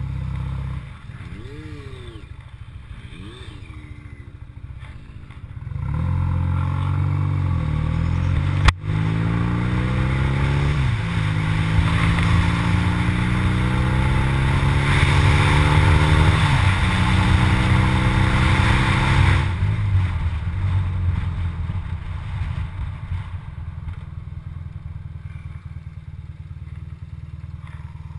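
BMW R80RT's air-cooled boxer twin pulling away and accelerating up through the gears: the engine note climbs in each gear and drops at the shifts about 9, 11 and 16 seconds in, with a sharp click at the first shift. Wind rush on the helmet microphone builds with speed, then the throttle eases off and the bike rolls on more quietly for the last third.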